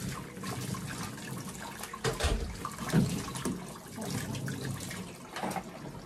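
Kitchen tap running into a plastic washing-up basin in the sink, with water splashing as dishes are washed by hand. A few clunks of dishes knocking, the loudest about two and three seconds in.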